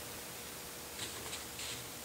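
Faint short scuffs of a small wooden block and a pencil being shifted on a plywood sheet, once about a second in and again a little later, over quiet room tone.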